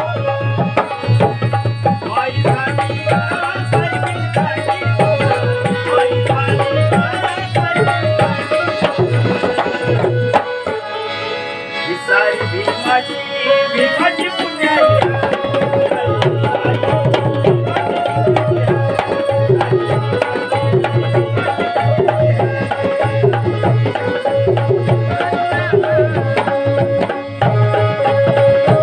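Harmonium playing a melody over a rhythm on dholak and tabla. About eleven seconds in the deep drum beat drops out for a few seconds, then comes back in.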